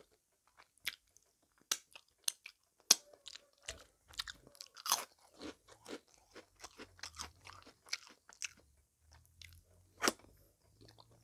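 Close-miked eating sounds: chewing and wet lip smacks while eating sticky date-palm jaggery chutney by hand, with scattered crisp clicks and crunches.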